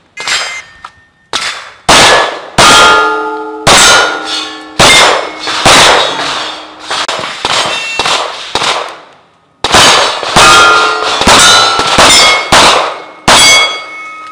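Rapid pistol shots at steel target plates, each hit leaving the plate ringing with a metallic clang. The shots come about one every half-second to second, with a brief pause a little past the middle.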